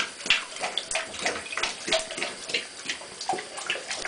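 Great Dane puppy lapping water in a bathtub, quick wet laps at about four a second over a thin trickle from the faucet.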